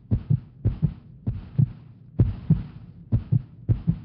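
Low thumps in pairs, like a heartbeat, each pair about a quarter second apart and the pairs coming every half to nearly one second, six pairs in all.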